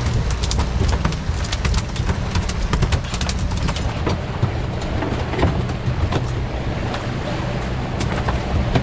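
Suzuki 300 four-stroke V6 outboard motor running steadily with the boat under way, over the rush of water from the wake, with scattered sharp clicks and knocks throughout.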